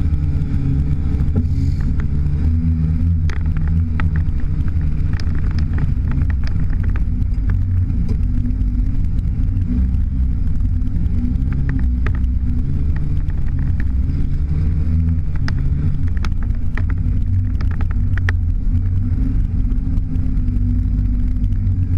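Side-by-side UTV's engine running steadily, heard from inside the cab, its pitch shifting a little with the throttle as it drives over a rutted dirt trail. Scattered short knocks and rattles come through throughout.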